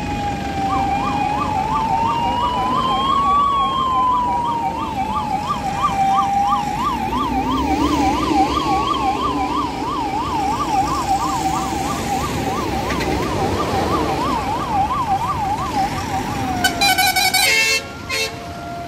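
Fire engines' sirens sounding together as the trucks pass. One runs a slow rising-and-falling wail and another a fast yelp of about three sweeps a second, with engines running underneath. Near the end a loud horn-like blast sounds for about a second, and a siren settles into a steady held tone.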